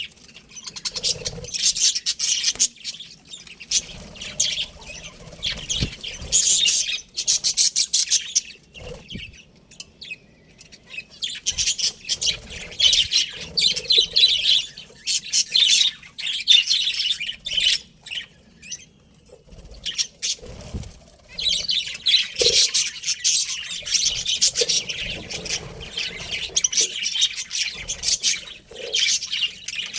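Budgerigars chirping and chattering in dense, rapid high-pitched runs, with two quieter lulls partway through.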